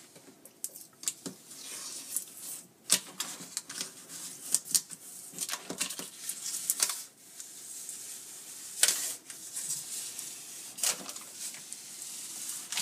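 Transparent transfer tape being peeled slowly down off a sheet of self-adhesive vinyl on a wall, crackling unevenly with scattered sharp ticks as the adhesive lets go.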